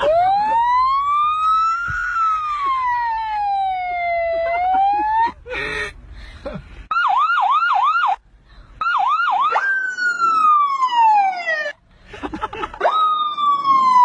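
A boy imitating a police siren with his voice. It starts as a slow rising and falling wail, breaks off briefly, then turns to rapid yelping whoops about four a second, and ends in long falling wails.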